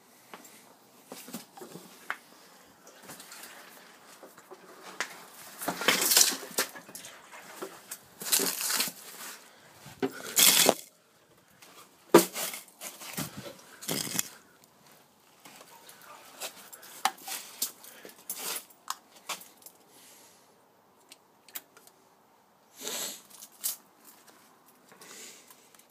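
Handling noise: irregular rustling, scraping and knocks close to the microphone, loudest in a string of bursts in the first half.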